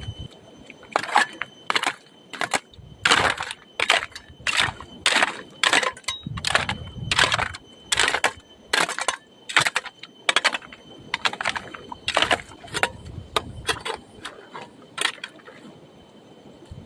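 Repeated crunching, swishing strokes of a hand tool cutting through grass and brush, about one to two strokes a second at an uneven pace.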